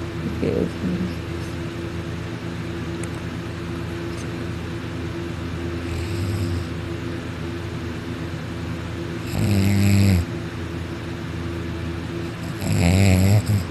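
A sleeping person snoring heavily. A fainter snore comes about six seconds in, then two loud snores a few seconds apart near the end, over a steady low hum.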